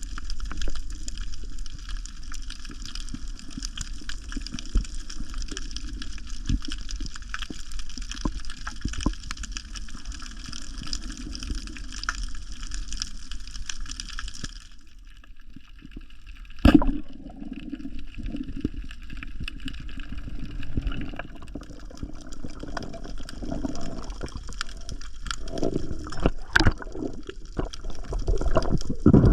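Water sloshing and gurgling, as heard underwater, with scattered small clicks and knocks. One sharp, loud knock a little past halfway, and a few more near the end.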